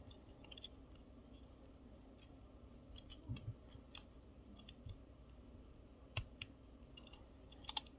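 Faint plastic clicks and light knocks of a small Transformers Core Class Bumblebee figure's parts being shifted and pushed into place by hand. The clicks come one at a time at irregular moments, the sharpest about six seconds in and a double click near the end.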